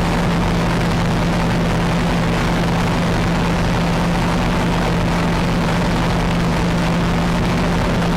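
Loud, steady rushing noise with a low constant hum, unchanging throughout, like a running engine or machine; it starts and stops abruptly.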